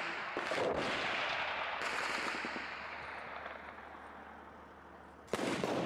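Automatic small-arms fire: a few shots about half a second in, their noise slowly fading away over the next few seconds, then a fresh rapid burst of shots near the end.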